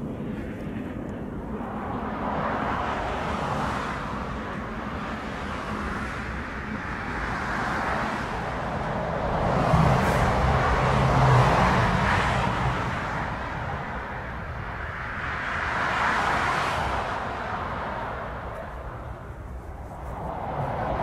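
Jet airliner engines at taxi power: a steady rushing noise that swells and fades several times, with a low hum strongest around the middle.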